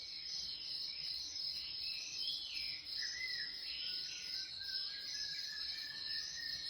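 Insects trilling steadily at a high pitch, with a few fainter chirps and short sliding whistles beneath.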